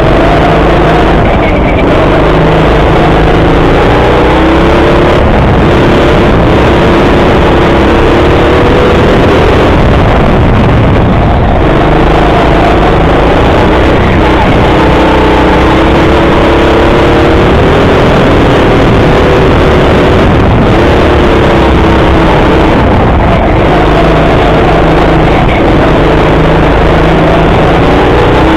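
Loud go-kart motor heard from on board the kart, its pitch rising and falling again and again as the kart speeds up on the straights and slows for the corners, over steady road and wind noise.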